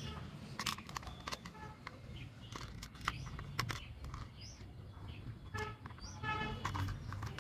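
Scattered light clicks and taps of hands handling a plastic toy car body. Short high bird chirps repeat in the background, and a faint animal call sounds near the end.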